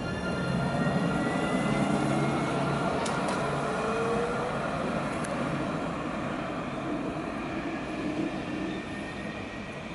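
Alstom Citadis tram pulling away from the stop, its traction motors giving a rising electric whine as it picks up speed, then the running noise fading as it moves off.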